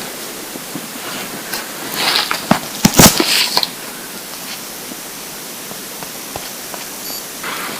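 Hungry, empty stomach rumbling over a steady hiss: a burst of gurgles and squelches from about two to four seconds in, loudest around three seconds, and a shorter gurgle near the end.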